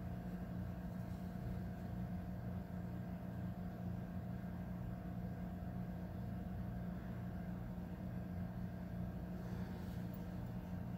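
A steady low hum that does not change, with no distinct events on top of it.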